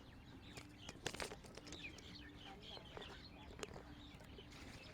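Faint chirping and twittering of small birds, many short calls overlapping, with a few sharp clicks about a second in and again near the end.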